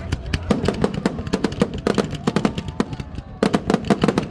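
Fireworks finale barrage: a rapid string of sharp bangs and crackling reports, several a second, packing closer together about three and a half seconds in.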